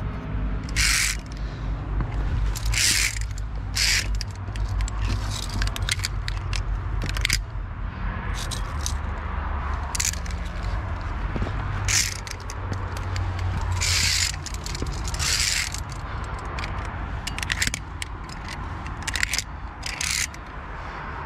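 Via ferrata carabiners clicking and scraping on the steel safety cable, about a dozen short metallic clicks and scrapes every second or two, over a steady low rumble.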